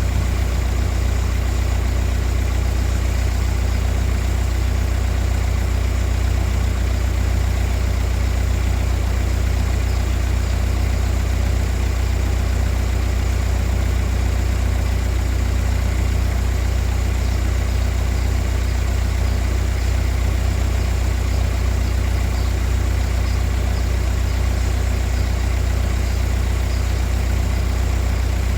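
A loud, steady low drone from a running machine, with a faint even pulse in it, unchanging throughout.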